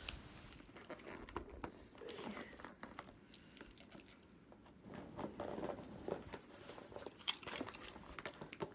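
Cardboard mailer box being pulled open after its tape was slit with a key: scattered rustles, scrapes and light clicks of cardboard and tape as the flaps are worked apart.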